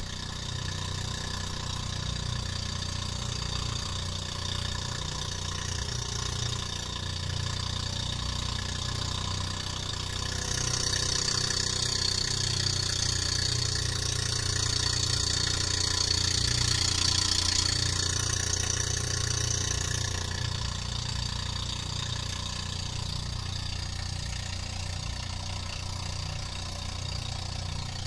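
Engine of a motorized outrigger boat (bangka) running steadily under way, a low continuous drone. A rushing hiss rises over it from about ten seconds in and eases off again around twenty seconds.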